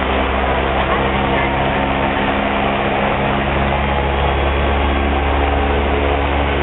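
Old pickup truck's engine running slowly at low revs as the truck creeps past, a steady low hum that grows stronger about halfway through.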